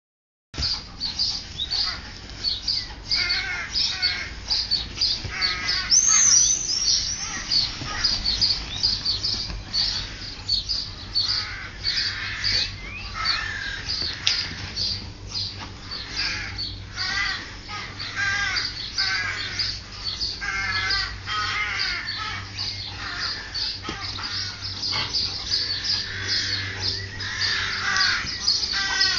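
Many birds calling at once: a dense run of quick high chirps and warbles, mixed with harsh crow-like cawing calls. It starts abruptly about half a second in and keeps up without a break.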